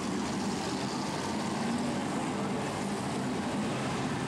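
Many BriSCA F1 stock cars' V8 engines running flat out together as the pack races past, a steady, dense mixed engine drone.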